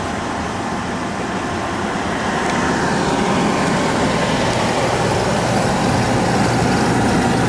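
Oil furnace running: a steady burner-and-blower noise with a low hum, growing a little louder about three seconds in.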